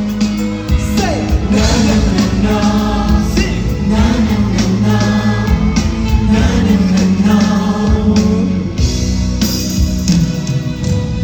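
Pop song performed live on stage: sung vocals over a band-style backing track.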